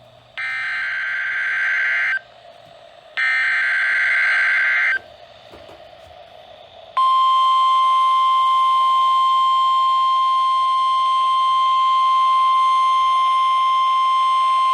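Emergency Alert System weather alert. Two bursts of buzzy, warbling SAME digital header data, each nearly two seconds long, are followed about seven seconds in by a loud, steady single-pitch warning alarm tone near 1050 Hz, the NOAA Weather Radio alert tone.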